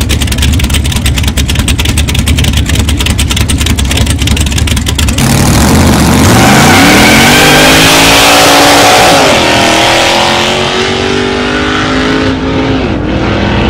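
Chevrolet stock car's V8 idling with a rapid, choppy open-exhaust beat, then launching hard about five seconds in, the revs climbing quickly. There is a gear change about nine seconds in and another near the end.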